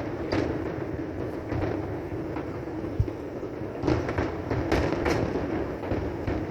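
Distant fireworks bursting: a series of irregular bangs, the sharpest about three seconds in and a cluster near the end, over a steady rumbling background, picked up on a phone microphone.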